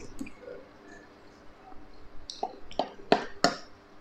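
Eating sounds from spoonfuls of star apple in milk: soft mouth noises, then about five short sharp clicks in the last two seconds.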